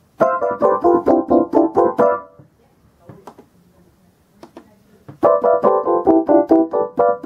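Concertmate electronic keyboard playing a quick run of notes, about five a second for two seconds, on its Electric Piano 3 voice. After a few faint clicks, a second quick run on its Electric Piano 4 voice starts about five seconds in.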